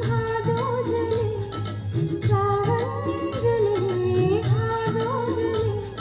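A woman singing a slow, bending melody into a handheld karaoke microphone, over a backing track with steady low bass notes.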